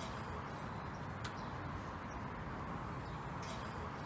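Quiet outdoor background: a steady low hiss and rumble, with two faint clicks about a second in and near the end.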